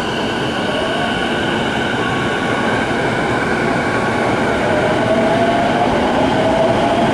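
Electric commuter train running alongside the platform, its wheels and running gear making a steady loud noise, with a motor whine rising in pitch as the train accelerates.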